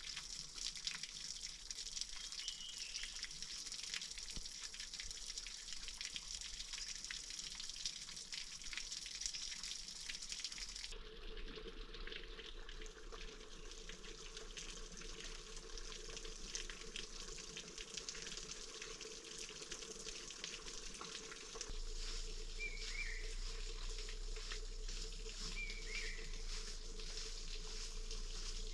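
Water running and trickling steadily, with a spatter of small clicks. The sound changes abruptly about 11 and 22 seconds in, and a few short high calls come through.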